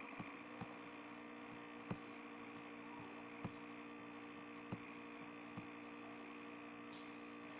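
Steady low electrical hum with a few faint, short clicks spread through it, from computer mouse clicks.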